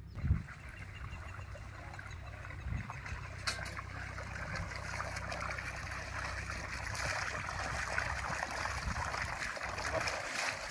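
Water gushing out of an irrigation pump's outlet pipe and splashing into a field channel, a steady rushing that grows louder in the second half.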